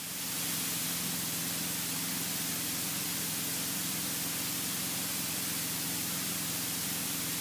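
Steady hiss with the even drone of a light aircraft's piston engine and propeller beneath it, heard inside the cockpit in flight.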